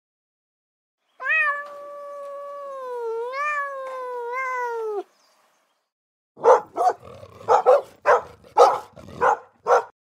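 An animal's long, wavering yowl lasting nearly four seconds, then a quick series of about eight short barks from a small dog.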